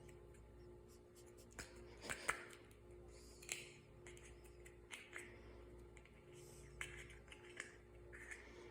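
Faint handling of slime by hand: scattered soft clicks and squishy swishes, the sharpest click about two seconds in, over a steady low hum.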